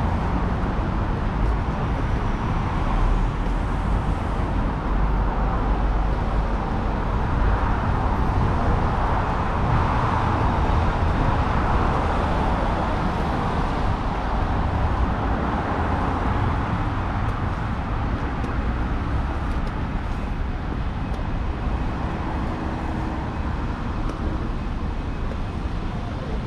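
Street traffic on a wet road, a steady wash of tyre and engine noise that swells about ten seconds in as vehicles pass.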